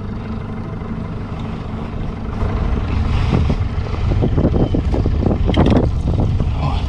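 Boat's outboard motor running steadily at low speed. From about two seconds in, irregular bursts of rushing, splashing noise grow louder over it.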